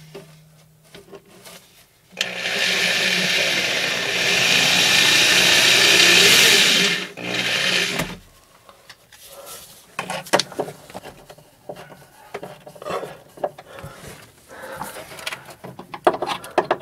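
Power drill running steadily for about five seconds, then a short second burst, while wood screws go into the back of a wooden countertop. Scattered handling clicks and knocks follow.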